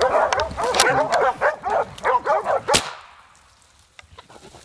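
Hog dogs baying and yipping rapidly at a bayed wild hog, ending about three seconds in with a single sharp crack from a .50-caliber Seneca Dragon Claw air rifle being fired.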